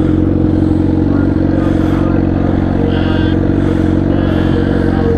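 Kawasaki Ninja ZX-10R's inline-four engine idling steadily, with the rider's straining struggle noises over it as he wrestles the bike into a parking spot.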